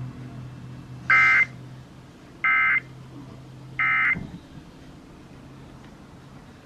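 Emergency Alert System end-of-message signal from an FM radio: three short, identical digital data bursts about a second and a half apart, closing out the Required Monthly Test. A faint low hum runs underneath.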